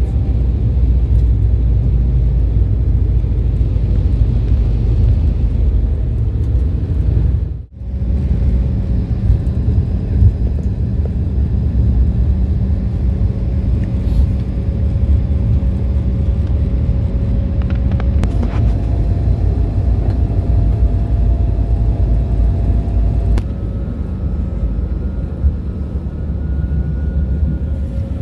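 Cabin noise of an airliner rolling on the ground after landing: a loud, steady low rumble of engines and wheels. It cuts out for an instant about eight seconds in, then carries on with a steady hum.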